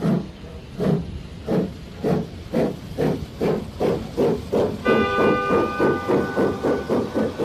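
Steam locomotive pulling away: exhaust chuffs start slow and speed up steadily to about four a second. A steady whistle joins about five seconds in.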